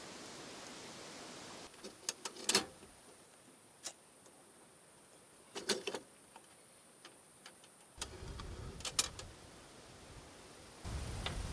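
A handful of sharp clicks and knocks, some in quick pairs, over a faint hiss, with a louder rushing background coming in near the end.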